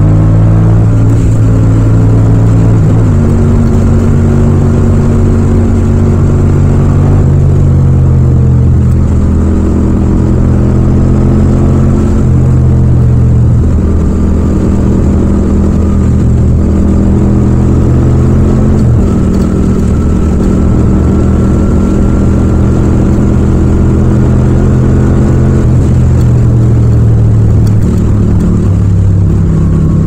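Yamaha MT-07's 689 cc parallel-twin engine running steadily at cruising speed, heard raw with no wind noise. Its note shifts a few times with the throttle.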